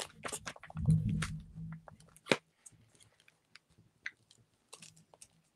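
Trading cards being handled on a tabletop: a scatter of light clicks, taps and crinkles of card stock and plastic sleeves.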